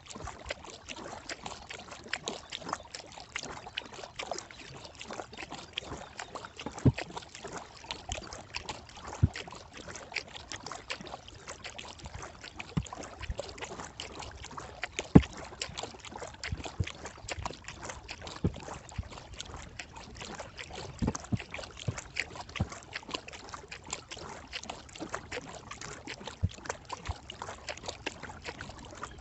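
Kayak being paddled on calm water: the paddle dips and splashes, water drips and trickles, and many small irregular clicks and knocks sound throughout, the sharpest about halfway through.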